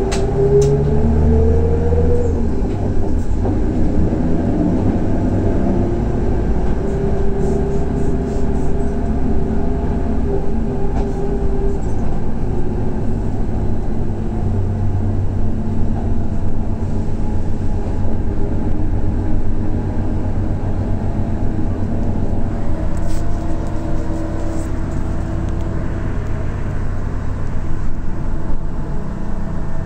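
Scania DC12 12-litre straight-six diesel of a 2006 Scania K124IB coach pulling under way, its pitch rising over the first two seconds and then levelling off into a steady run.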